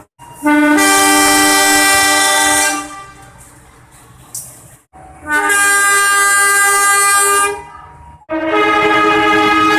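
Diesel locomotive horn sounding three long, steady blasts of about two seconds each, with abrupt cuts between them.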